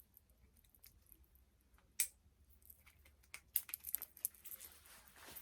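Hands working on a doll's packaging: scattered light clicks and crinkling, with one sharp click about two seconds in and a busier run of clicks a little past the middle.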